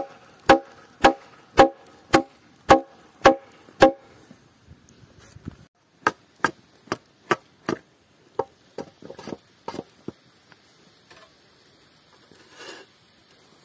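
A hatchet chopping a notch into a peeled log: a steady run of sharp blows, about two a second, for the first four seconds. After a short pause comes a second run of lighter blows, thinning into scattered knocks, and there is a brief rustle near the end.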